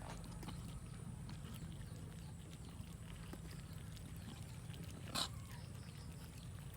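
Cats eating, with faint scattered clicks of chewing over a steady low hum, and one sharper click about five seconds in.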